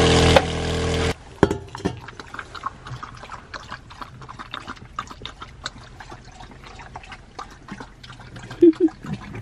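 Tap water running into a stainless steel dog bowl over a steady hum, cut off about a second in. Then an Australian cattle dog laps water from the metal bowl in many quick irregular splashes and ticks, with a brief higher squeak near the end.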